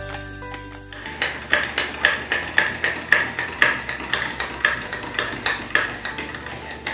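Radish being sliced on a plastic mandoline slicer, the hand guard pushed back and forth over the blade: a sharp stroke about twice a second, each with a short ring. Background music stops about a second in, as the slicing starts.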